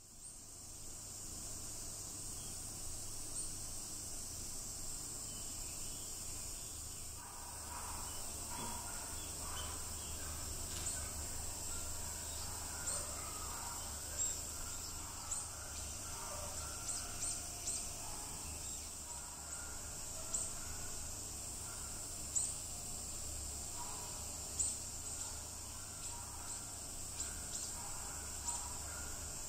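Outdoor ambience dominated by a steady high-pitched insect drone, with short high chirps every second or two. From about seven seconds in there is faint lower twittering.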